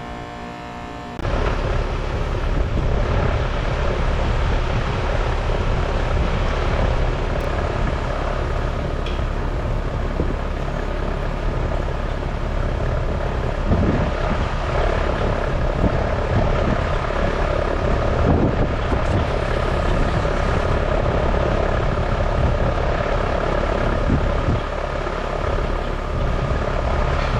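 A 2-ton central air conditioning system switches on about a second in and then runs steadily with a loud fan rush. It is starting up on its first refrigerant charge of about 4 pounds after a new air handler coil.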